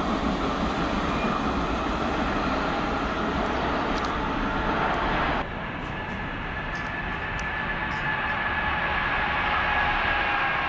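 PATCO Speedline rapid-transit train running through a concrete trench station, a steady rail rumble. About halfway through, a sudden cut leads to an approaching train of PATCO III cars, its motor whine of two steady tones falling slowly in pitch as the sound grows louder.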